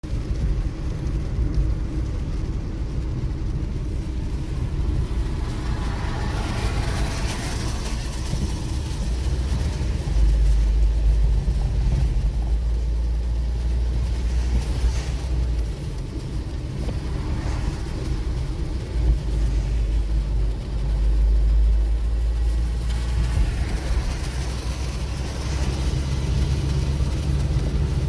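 Car driving on a wet road, heard from inside the car: a steady low rumble of engine and tyres, with swells of hiss now and then.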